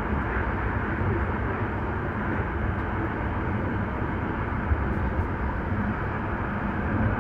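Hankyu Kyoto Line electric train running at speed, heard from inside at the front of the train: a steady low rumble of wheels on rail and running gear.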